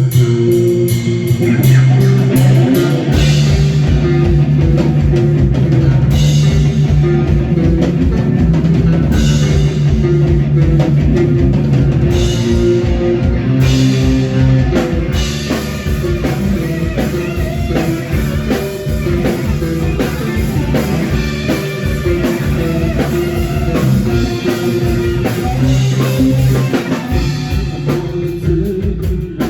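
Rock band playing an instrumental passage live: electric guitar and bass guitar, with the drum kit coming in during the first few seconds and keeping a steady beat.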